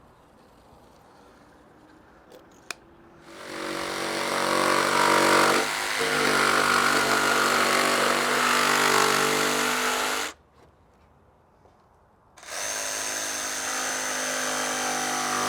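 An electric power tool runs twice with a steady motor whine: once for about seven seconds, then, after a short pause, again for about four seconds. A single sharp click comes just before the first run.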